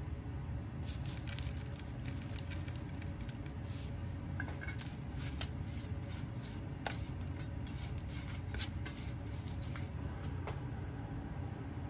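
Spinach being seasoned and mixed by hand in a metal ramen pot: a dense patter of small ticks for the first few seconds, then scattered light clicks and squishes, over a steady low hum.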